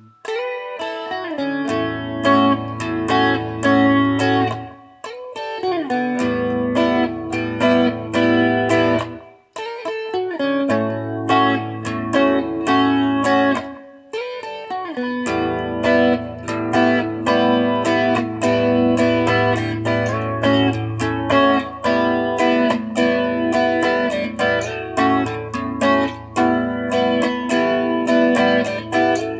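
Guitar played instrumentally: a steady run of plucked notes over sustained low bass notes, with brief pauses about five, nine and fourteen seconds in.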